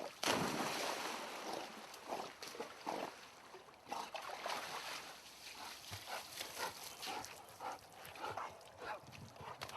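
A splash of water at the start, then a dog barking in short, repeated bursts in a swimming pool.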